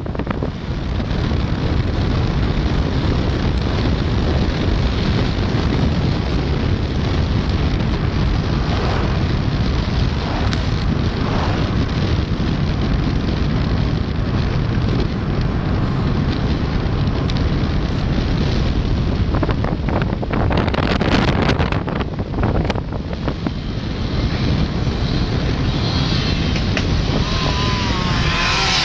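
Steady road and wind noise of a car driving, with wind buffeting the microphone. A run of knocks and rattles comes about twenty seconds in.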